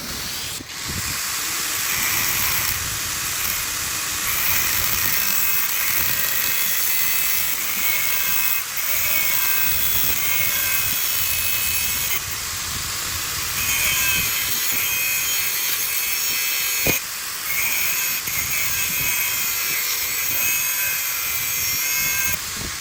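Power grinder grinding bearing steel: a steady hissing grind with a faint whine, easing off briefly a couple of times.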